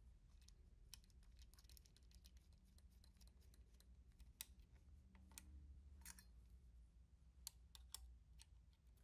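Near silence over a low hum, broken by about a dozen faint, irregular clicks and ticks of small metal parts being handled.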